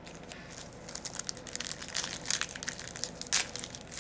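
Hockey trading card pack wrapper crinkling and tearing in a dense run of sharp crackles, louder from about a second in.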